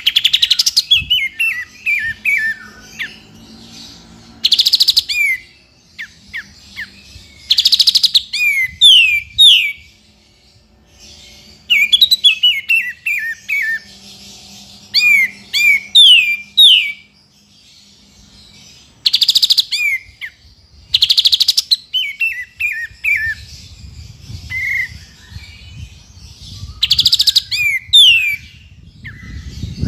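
Olive-winged bulbul (kapas tembak) singing: quick runs of sliding, falling whistled notes, broken six times by short, loud harsh rasping notes.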